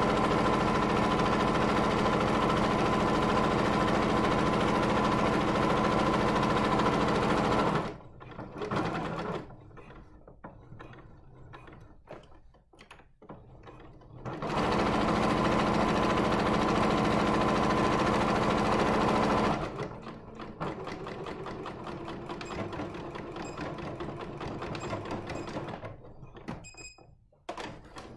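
Electric domestic sewing machine stitching steadily at speed through fabric. It runs for about eight seconds, stops, and runs again for about five seconds, with fabric being handled and repositioned between the runs.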